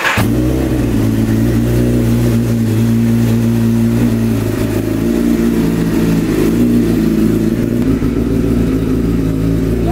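Kawasaki ZX-10R superbike's inline-four engine running at a steady idle through its aftermarket exhaust.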